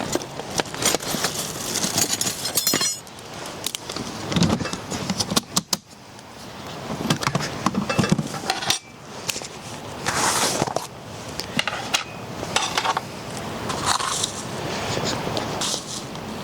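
Rustling and light metal clinking, with irregular clicks and knocks, as gear is handled by hand.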